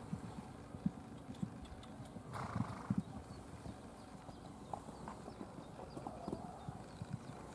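A horse's hooves thudding on a sand arena at a canter, an irregular run of dull beats, with a short louder burst of noise about two and a half seconds in.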